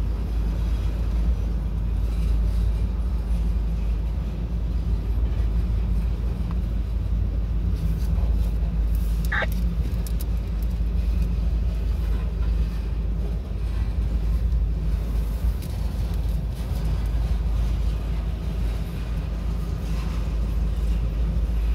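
CSX mixed freight train's cars rolling past, heard from inside a car: a steady low rumble, with a short high squeal about nine seconds in.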